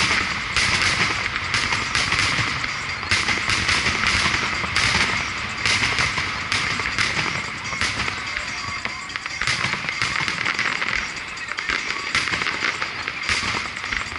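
Fireworks display: aerial shells bursting in quick succession, a rapid series of bangs with crackle between them.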